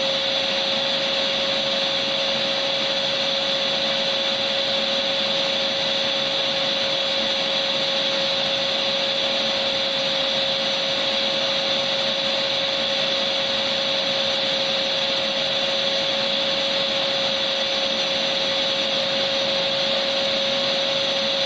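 Vacuum cleaner motor running continuously: an even rush of air with a steady whine held at one pitch, used as white noise.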